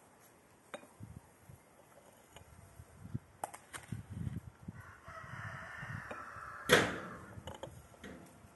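A rooster crows once, a call of about two seconds that starts a little under five seconds in. As the crow ends there is a single sharp knock, the loudest sound here, with scattered light clicks and handling sounds before and after it.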